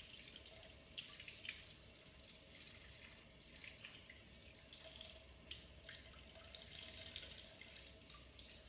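Faint, steady splashing of a lab sink tap running over a glass flask into the sink to cool it, with small irregular drips and splashes.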